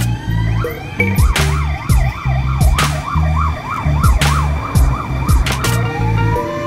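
Music with a heavy bass beat and drum hits, with a siren yelping rapidly up and down through it. A rising siren wail starts near the end.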